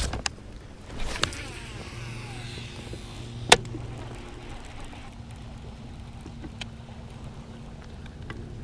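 Cast with a baitcasting rod and reel: a swish about a second in, the reel spool whirring as line pays out, then a sharp click about three and a half seconds in, the loudest sound, as the reel is put back in gear. A faint steady low hum runs underneath.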